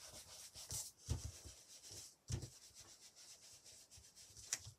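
Faint paper sounds of hands rubbing and handling a sheet of card on a craft mat, irregular strokes with a few louder scuffs.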